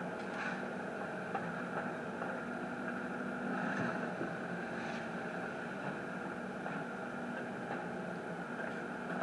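Construction machinery engine running steadily, a constant hum with a few faint knocks.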